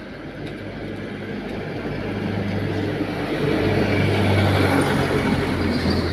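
A motor vehicle passing by: a low engine hum that swells, is loudest about four to five seconds in, then starts to fade.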